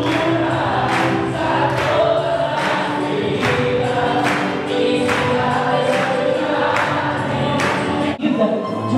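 Choir singing gospel music over a steady beat of a little under one hit a second, with a short break about eight seconds in.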